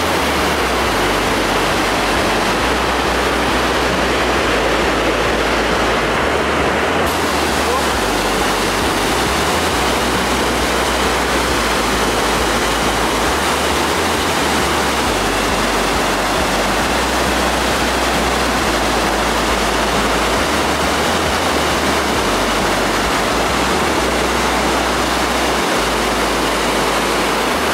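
Steady, loud rush of Niagara's American and Bridal Veil Falls, the water crashing onto the boulders at their base, heard from just above. The hiss grows brighter and fuller about seven seconds in.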